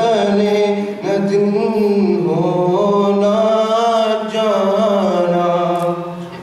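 A solo man's voice doing unaccompanied devotional chanting in long, melodic held notes that waver and slide. The phrase tails off near the end.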